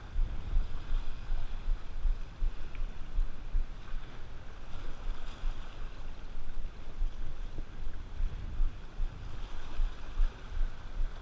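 Wind buffeting the camera microphone in uneven gusts, over the wash of small waves breaking on shoreline rocks.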